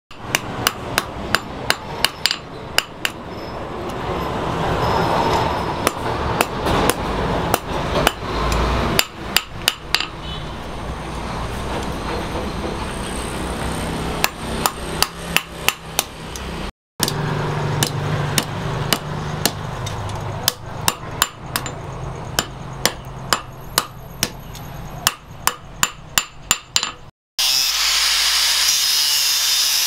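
Hand hammer striking a red-hot steel knife blade on a stake anvil: quick runs of sharp metal-on-metal blows, several a second, with short pauses between runs. Near the end it gives way to an electric angle grinder running steadily.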